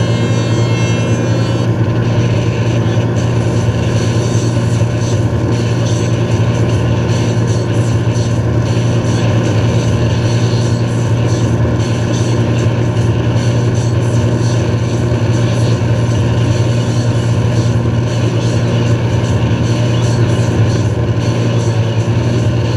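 Steady drone of a towing boat's inboard engine running at constant wakesurf speed, with the rush of the churning wake water under it.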